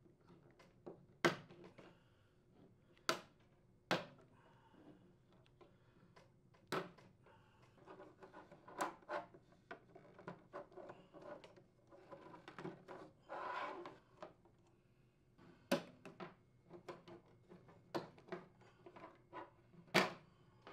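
Hard plastic clicking, snapping and scraping as a putty knife pries the pins of the vertical louver assemblies loose from an air conditioner's plastic horizontal louver. Scattered sharp clicks, with stretches of rubbing and scraping in the middle.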